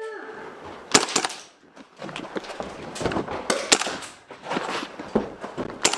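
Airsoft guns firing: a quick cluster of sharp shots about a second in, then irregular single shots and knocks.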